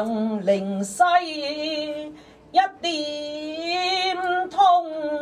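A woman singing a Cantonese opera line in long held notes, phrase after phrase with short breaths between them.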